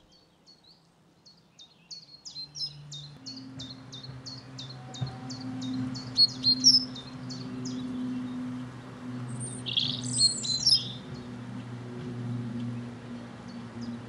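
A small flock of long-tailed tits calling: a quick run of short, high chirps for several seconds, then a louder burst of calls about ten seconds in.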